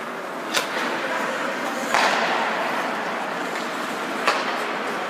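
Ice hockey play heard from the stands: a steady wash of skates on ice and rink noise, broken by three sharp clacks of stick and puck, the loudest about two seconds in.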